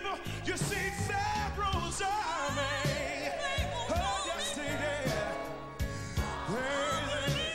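Live gospel singing with band accompaniment: a lead voice with strong vibrato holds a long wavering note midway, over a steady drum beat.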